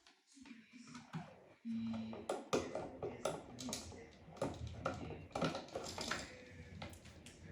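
Irregular light clicks and taps of hard objects being handled, with a brief low hum about two seconds in.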